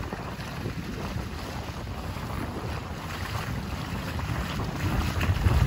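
Wind buffeting the microphone over water rushing past a moving motorboat, a steady rough rumble that gets louder near the end.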